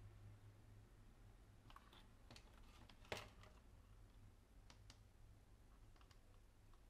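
Faint, scattered clicks and ticks of cables and small plastic header connectors being handled, the sharpest one a little after three seconds in, over a low steady hum.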